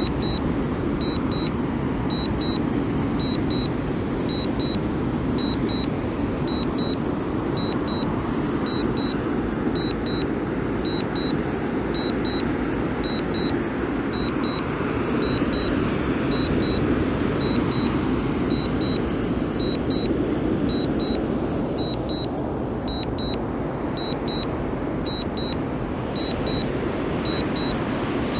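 Drone remote controller beeping in short high double beeps about once a second, the alert that a DJI Mini 2 is in return-to-home. Behind the beeps is a steady rushing noise.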